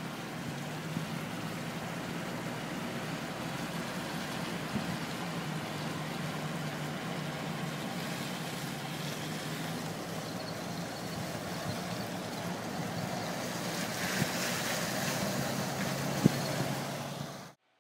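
Steady rushing of fast-flowing floodwater in a creek that has spilled out of its banks, with a constant low hum underneath.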